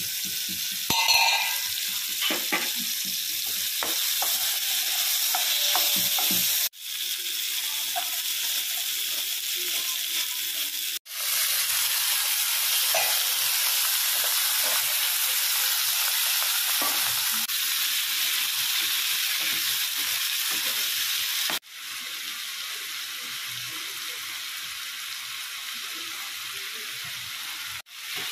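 Oil sizzling steadily in a frying pan as tomatoes, onions and cubes of raw banana fry, with a wooden spatula stirring through them. The sizzle cuts out for a moment at a few points.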